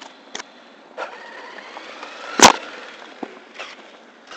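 A single sharp, loud knock on hard ground a little past halfway, over a faint outdoor hiss. Near the end come a few soft footsteps on concrete.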